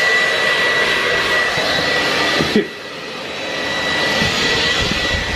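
Handheld electric hair dryer blowing, a steady rush of air with a high motor whine. The sound drops sharply about two and a half seconds in, then builds back up to full.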